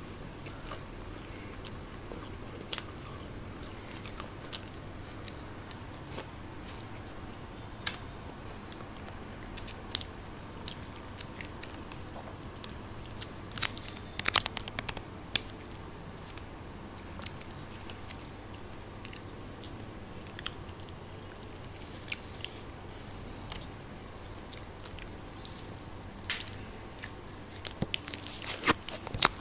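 Close-miked eating: chewing, biting and crunching of snack food such as french fries, with scattered crisp clicks that grow busier around halfway and again near the end.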